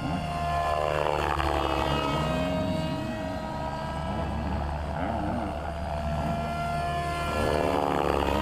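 Blade 700X electric RC helicopter in aerobatic flight, its motor and drivetrain whining under the spinning main rotor. The pitch sweeps up and down as it swoops past, about a second in and again near the end.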